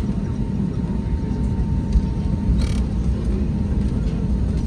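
Cabin noise of an Airbus A320neo rolling on the ground after landing: a steady low rumble from the wheels and engines, with a brief hiss about two and a half seconds in.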